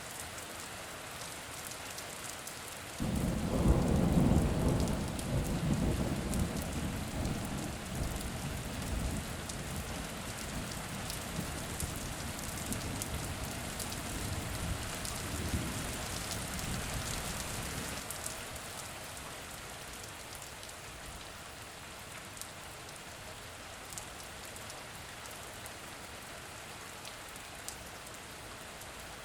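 Steady rain falling, with a thunderclap breaking suddenly about three seconds in, then rumbling and slowly dying away over some fifteen seconds until only the rain is left.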